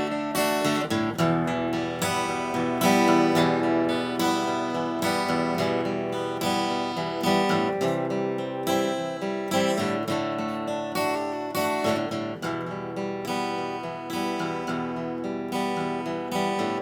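Music: strummed acoustic guitar playing a steady tune.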